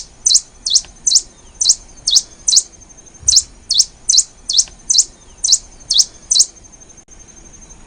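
Black-and-rufous warbling finch (Poospiza nigrorufa) calling: a steady series of short, sharp, high notes, each slurring quickly downward, about two to three a second. The calls stop about six and a half seconds in, leaving a faint steady high tone.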